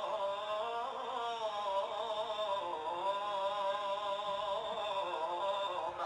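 A male voice singing an Arabic mawwal, holding long, ornamented lines that waver and bend in pitch without a break. It has a dull top end, as played back through a reaction recording.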